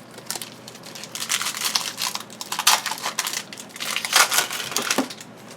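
Crinkling and crumpling of foil trading-card pack wrappers being handled and torn, in a string of crackly rustles that come in several louder flurries.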